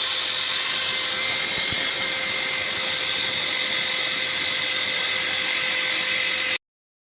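Small electric motor of a homemade mini lathe running at speed: a steady high-pitched whine with hiss that cuts off suddenly about six and a half seconds in.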